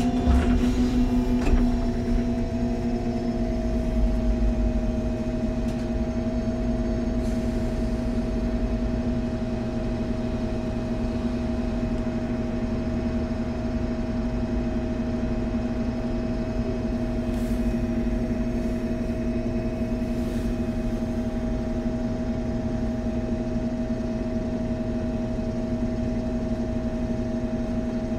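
MAN Lion's City G CNG articulated bus heard from inside the cabin: the engine and Voith automatic gearbox running with a steady hum and whine that hold an even pitch. The whine dips slightly in the first couple of seconds, with a few light clicks.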